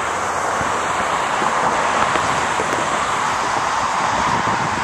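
Steady rushing roar of a distant Boeing 737-800's CFM56 jet engines as the airliner descends on approach to land.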